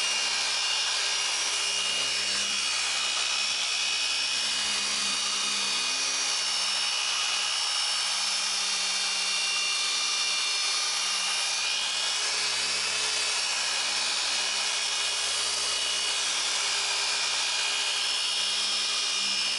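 Griot's Garage BOSS G15 dual-action (random orbital) polisher running steadily with a steady motor whine. Its orange pad is loaded with polish and working fine scratches out of a molded gloss-black plastic deck panel.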